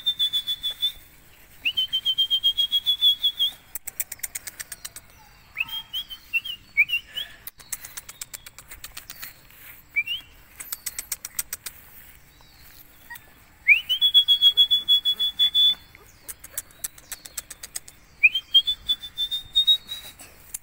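A person whistling to call puppies: repeated whistles that sweep up quickly and then hold a high, fluttering note for one to two seconds. Short upward chirps and bursts of rapid clicking come between them.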